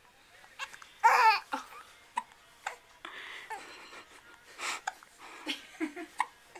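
A string of short, sharp hiccups, spaced irregularly, with a loud laugh about a second in.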